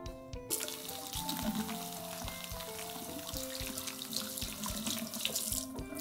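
Tap water running into a bathroom washbasin over hands being rinsed, starting about half a second in and breaking off briefly near the end.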